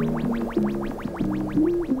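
Background music: a melody of held notes over a fast, even ticking, about eight ticks a second.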